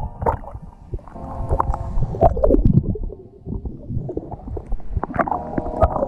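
Seawater sloshing and gurgling around a camera as it dips below the surface and back up, heard as uneven muffled rumbles with knocks of water against the housing.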